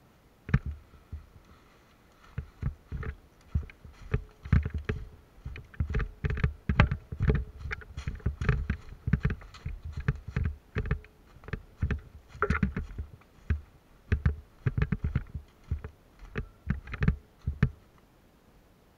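Irregular dull thumps and knocks, two or three a second, stopping near the end.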